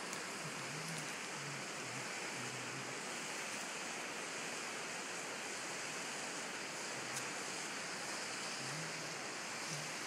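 Steady rush of running river water.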